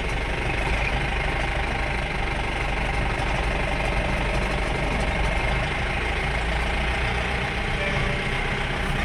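Vehicle engine running steadily as the vehicle is driven slowly, fully loaded with tyres, with road noise.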